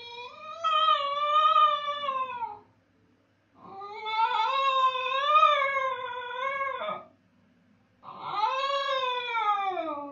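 Basenji howling while left alone by its owner: three long, wavering howls, each sliding down in pitch at the end, with short pauses between them.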